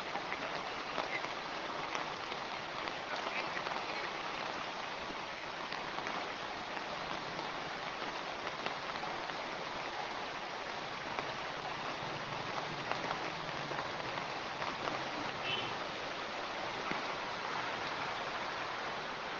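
Heavy rain pouring down: a steady hiss with the fine patter of drops striking surfaces.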